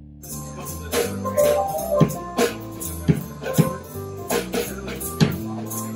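A live band of keyboards, electric guitar and drum kit playing an upbeat song, with drum hits keeping a steady beat over bass notes. It starts abruptly just after the start.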